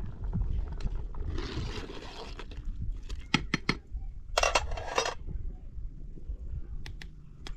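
Scattered clinks, knocks and scrapes of household items being handled, with a short hiss about a second and a half in and a brief clatter about four and a half seconds in.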